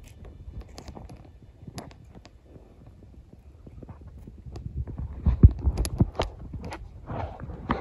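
Irregular crunching, snapping and rustling in dry leaf litter and brush, like someone moving through undergrowth on foot, with a cluster of heavier thumps and snaps a little past the middle.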